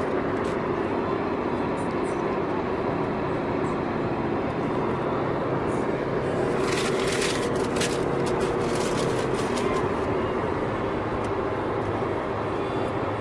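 Steady road and engine noise of a car in motion, with a low hum running through it. About seven to ten seconds in comes a spell of quick sharp clicks or rattles.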